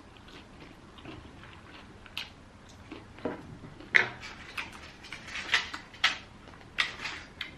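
Close-miked chewing of crispy fried chicken: irregular crunchy crackles and wet mouth sounds.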